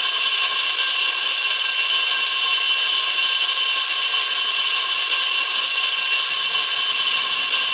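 Traditional electric school-bell sound from a Micro Controls SBELL8012 school bell controller, one long, steady, unbroken ring marking the start of the short break.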